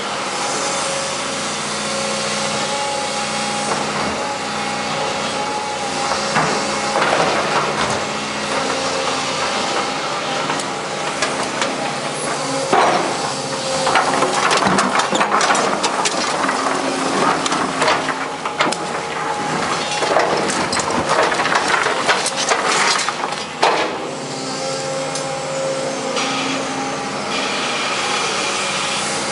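Daewoo 220LC-V hydraulic excavator's diesel engine running under load while its bucket scrapes, knocks and crunches through broken reinforced concrete. The cracking and clattering of the rubble is loudest in the middle stretch and eases off near the end, leaving the steady engine.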